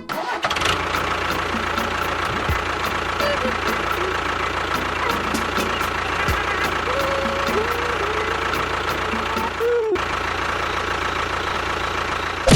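Steady, even running drone of a small engine or motor, with a faint light ticking over it. Briefly cut off twice, near the start and about ten seconds in.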